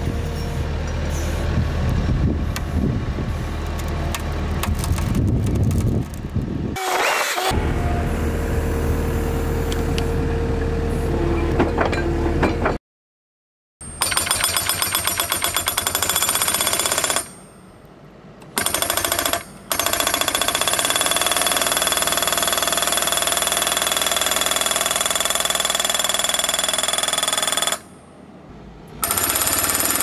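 Compact track loader's engine running steadily while it carries a wooden post in the grapple. After a brief total dropout, the Eterra PDX 750 breaker-style post driver hammers the post into the ground in rapid, evenly spaced blows, stopping briefly three times.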